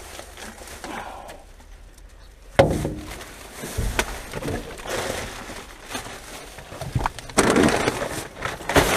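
Plastic rubbish bags rustling and crinkling as they are pulled about and shifted by hand, with a sharp knock about two and a half seconds in and a louder stretch of crinkling near the end.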